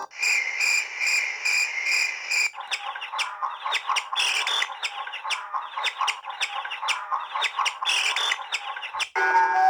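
Nature-sound ringtone on an LG G7100 mobile phone: chirps and tweets. For the first couple of seconds a high chirp repeats evenly, then comes a dense chatter of quick chirps over a hiss. About nine seconds in, a melodic ringtone takes over.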